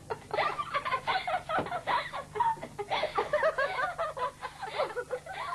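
Girls giggling and laughing in quick, repeated bursts.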